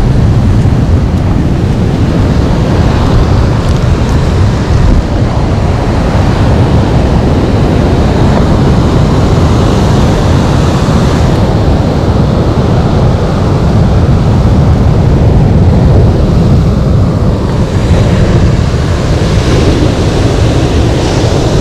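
Wind buffeting the microphone of a camera on a moving bicycle: a loud, steady rumbling noise that holds even throughout.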